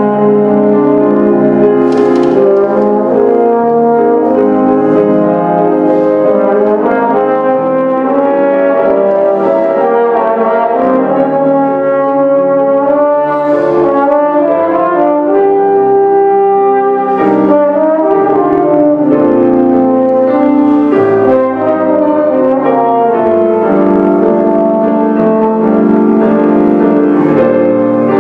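Trombone playing a slow melody in long, held, connected notes, with piano accompaniment.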